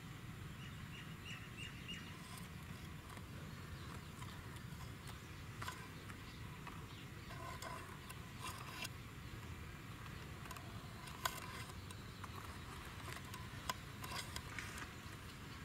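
Faint outdoor ambience: a steady low rumble with a few quick high bird chirps in the first two seconds and scattered sharp clicks, the loudest around eleven and fourteen seconds in.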